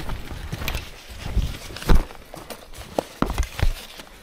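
Footsteps of a person walking in waders, heavy irregular thuds close to a chest-mounted camera with rustling between them. The loudest thud comes about two seconds in.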